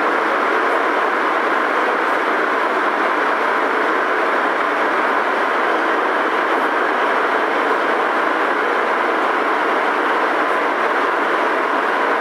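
Prague Metro M1 train running at a steady speed between stations, heard from inside the car as an even, unchanging rumble and hiss without distinct rail clicks.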